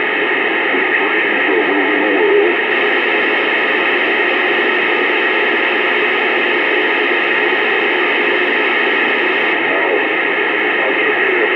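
Steady static hiss, cut off above and below like a radio or phone line, holding an even level throughout, with faint indistinct murmuring underneath.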